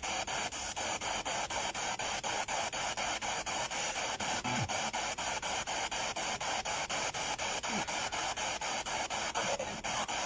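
Spirit box sweeping through radio stations: steady static hiss chopped in an even rhythm about six times a second, with brief faint fragments of sound from the stations it passes.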